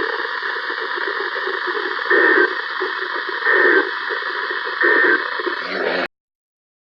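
Three short Emergency Alert System end-of-message data bursts, about a second apart, over a static-laden radio signal, marking the end of the alert broadcast. The audio cuts off abruptly about six seconds in.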